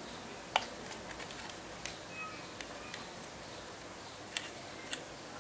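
Light, irregular clicks and ticks of an earbud cable and earbuds being unhooked from a plastic packaging insert, the sharpest about half a second in.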